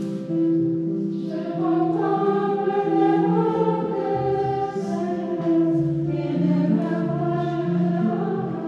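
Church choir singing a hymn, several voices holding long notes together and moving from note to note, with short breaths between phrases.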